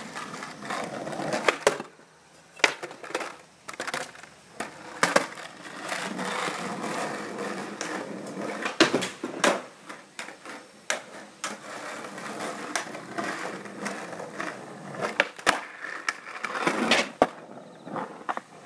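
Skateboard wheels rolling over rough concrete, broken by many sharp clacks of the board striking the ground at irregular moments.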